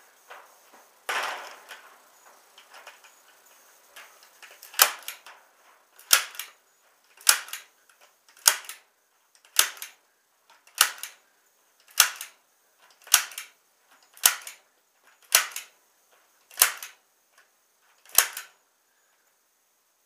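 Hand staple gun firing staples to fix welded wire mesh onto a timber frame: a dozen sharp snaps, evenly paced about one every second and a bit, starting about five seconds in. A brief scraping rustle about a second in.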